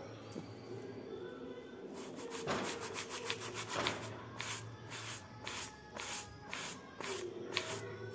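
Stiff-bristled scrub brush scrubbing a soaped shoe, soft at first, then quick back-and-forth strokes about two to three a second from about two seconds in.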